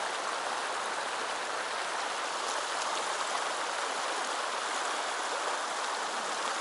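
Shallow mountain stream rushing over rocks in a riffle: a steady, even rush of running water.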